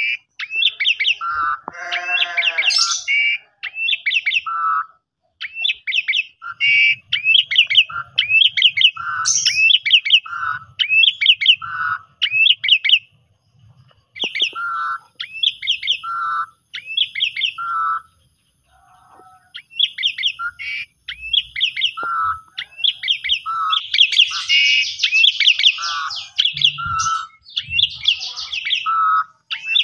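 Caged Javan pied starling (jalak suren) singing its 'kopi-kopiko' phrase over and over. Each phrase is a lower note followed by a quick run of higher notes, coming about every second and a half, with a few short pauses and a harsher, raspy stretch near the end.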